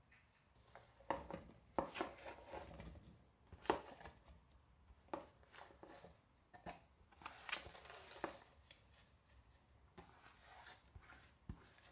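Soaked chickpeas and then fresh parsley leaves being put by hand into a stainless steel mixer-grinder jar: faint, irregular clicks and rustles against the steel.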